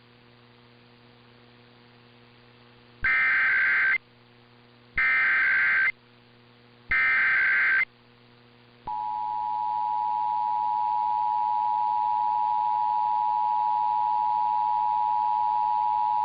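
Emergency Alert System SAME header: three one-second bursts of screeching digital data tones, one every two seconds, over a faint steady hum. About nine seconds in, the steady two-tone EAS attention signal starts and runs on.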